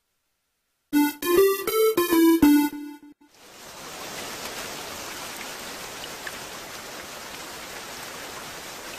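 A short musical jingle of several notes lasting about two seconds, followed by steady rain hiss that runs on without a break.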